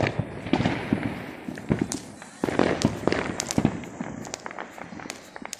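Fireworks crackling and popping in a dense run of sharp cracks, with a louder burst starting about two and a half seconds in.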